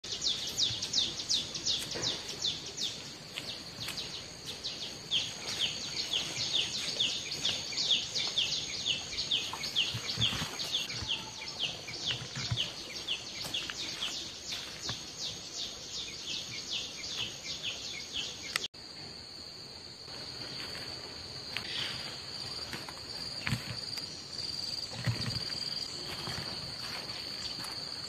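Insects calling: a fast, even, high-pitched pulsing chirr, about four pulses a second over a steady whine. About two-thirds of the way through it cuts off abruptly, giving way to a different steady high-pitched insect drone.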